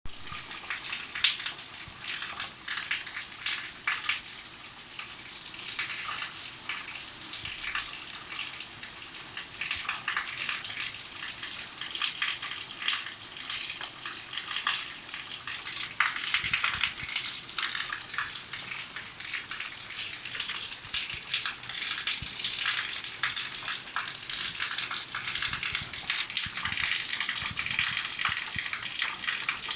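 Rain falling steadily, a hiss of water dotted with many small drop impacts, growing louder about halfway through and again near the end.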